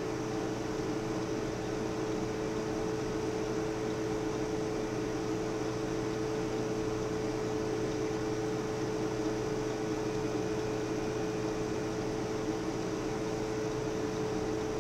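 Steady machine hum: two held low tones over a faint even hiss.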